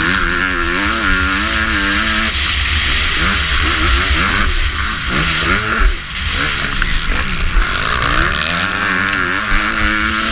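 Motocross bike engine racing on a dirt track, revving up and down repeatedly as the rider works the throttle through gears, heard over heavy wind rush on the on-board microphone. About six seconds in the revs drop briefly, then climb again.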